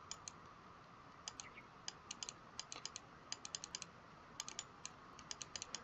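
Faint, irregular typing on a computer keyboard: short single keystrokes in uneven runs, a few a second.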